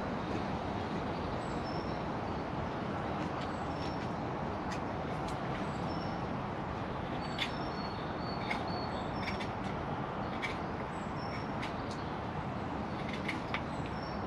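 Woodland ambience: a steady rushing background noise, with small birds giving short high chirps now and then and scattered sharp clicks, several close together in the second half.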